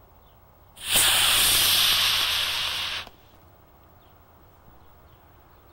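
Model rocket motor igniting and burning with a loud, even hiss for a little over two seconds as the rocket lifts off, cutting off sharply at burnout.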